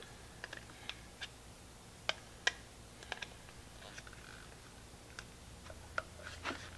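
Faint, irregular clicks and ticks of a metal spoon handle working into the snap-fit seam of a plastic Cuisinart carafe lid, as the two halves are pressed apart.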